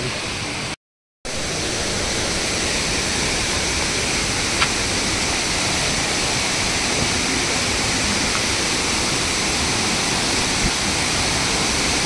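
Steady rush of water cascading over rocks, a continuous even hiss. The sound drops out completely for a moment about a second in.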